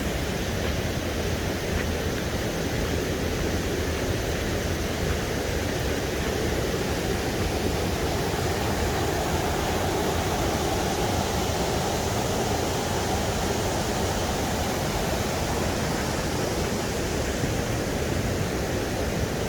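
Steady rush of a waterfall running full after heavy rain, an even wash of water noise without breaks.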